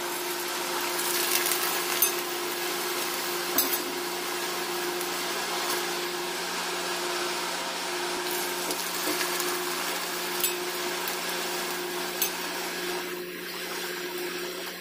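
Sun-dried rice-and-sago vadam (rice papad) deep-frying in hot oil: a steady sizzle with a sharp pop every second or two. A steady low hum runs underneath.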